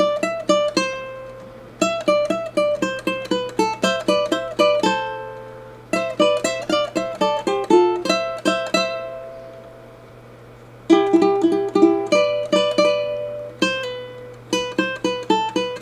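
Two ukuleles playing a tune in quick plucked notes, in phrases broken by short pauses, with a longer lull about ten seconds in.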